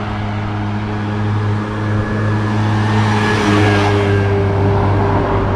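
Road traffic: a steady low engine hum, with a car passing close by that is loudest a little past the middle.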